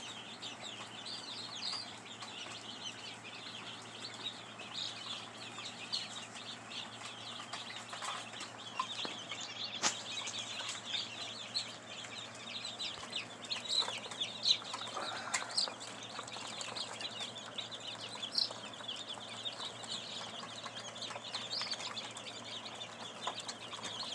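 A flock of chickens and chicks calling steadily, many short overlapping peeps and clucks.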